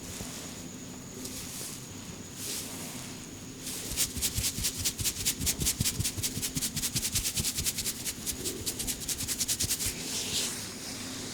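Rapid rhythmic hand strikes of a head massage, about nine a second, starting about four seconds in and stopping near the end. A few soft swishes of hands rubbing come first.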